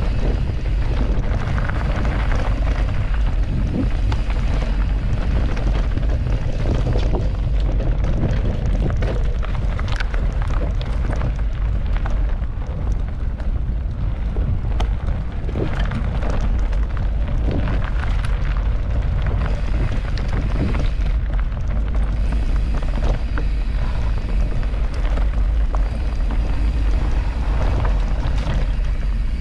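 Mountain bike riding a rough forest trail: a steady low rumble of wind buffeting the microphone, with frequent small clicks and knocks of the bike rattling over the ground.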